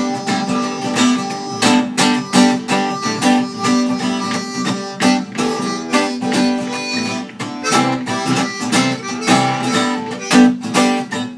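Live blues instrumental break between sung verses: an acoustic guitar strummed in a steady rhythm.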